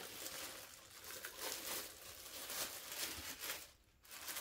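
Clear plastic packaging bag crinkling and rustling as it is handled and opened and an item is pulled out, with a short lull near the end.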